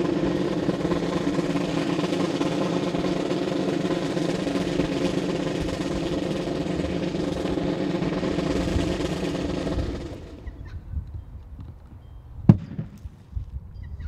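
Snare drum roll, held steady for about ten seconds and then stopping, followed a couple of seconds later by a single thump.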